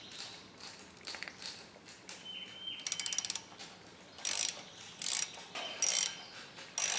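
Hand socket ratchet clicking as a screw is tightened: a fast run of clicks about three seconds in, then four separate ratcheting strokes a little under a second apart.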